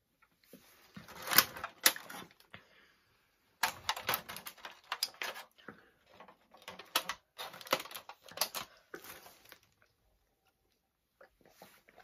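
Clear plastic donut packaging handled over the donuts: crinkling and sharp plastic clicks in spurts with short pauses, the sharpest snap about a second and a half in.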